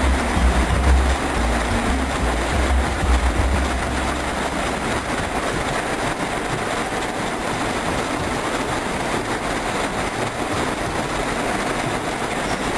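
Many power looms running at once in a weaving shed: a dense, steady mechanical clatter, with a low rumble over the first few seconds.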